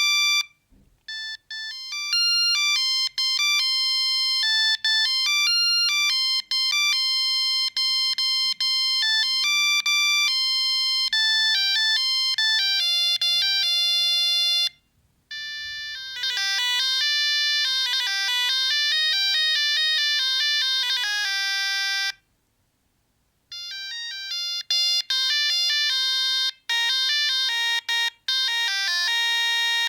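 Siemens C45 mobile phone ringtones: electronic beeping tunes played one note at a time, one after another, with short pauses between them.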